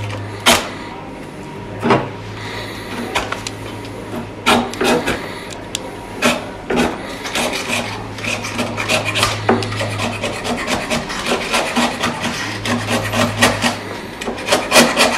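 Hand-held blade scraping fletching vanes and glue off an arrow shaft: a run of short scraping strokes that come faster and closer together in the second half.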